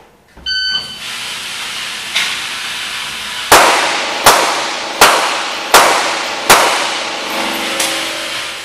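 An electronic shot-timer start beep, then a string of handgun shots on an indoor range, each ringing off the walls: two lighter shots, then five loud ones about three-quarters of a second apart.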